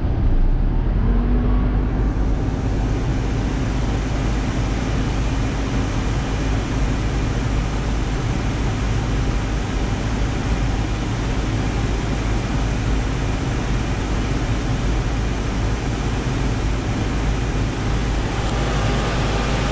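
Mazda Bravo B2600 ute running on the road: steady engine and road noise.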